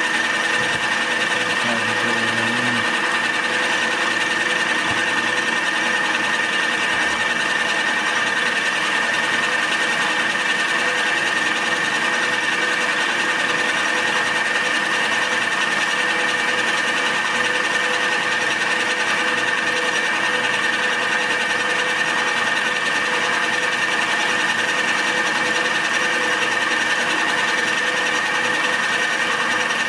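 Milling machine running steadily, its cutter face-milling aluminium with cutting fluid, a steady high whine. The back edge of the cutter is just lightly touching the work, which shows as arcs from both the front and back cut.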